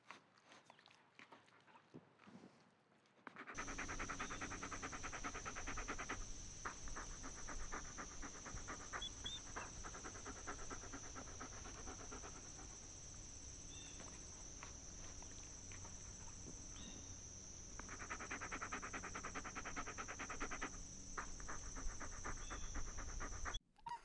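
A small terrier panting rapidly while it chews a bone. The panting gets louder about three seconds in and comes in stronger spells, over a steady high-pitched hum.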